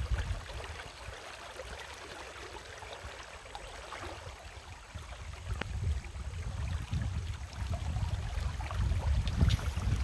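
Wind buffeting the microphone in low gusts, easing for a few seconds and picking up again about halfway through, over a steady rush of flowing river water.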